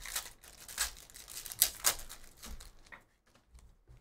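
Foil wrapper of a Panini Phoenix football card pack being torn open and crinkled: a run of short, sharp rips and rustles for about three seconds, with the loudest two rips near the middle, then quieter handling.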